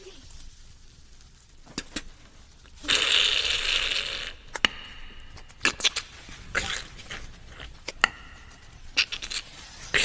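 Human beatbox sound effects imitating breakfast cooking: sharp cracking clicks like eggs being broken, and a loud hiss of frying about three seconds in that lasts about a second and a half, followed by scattered clicks and taps.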